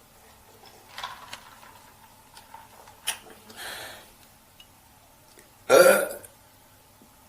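A woman's single loud burp, lasting about half a second, near the end, after a few faint clicks and a soft breath-like noise.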